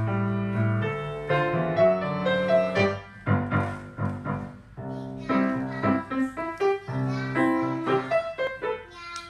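Piano music: a keyboard playing chords and a melody of several held notes at once.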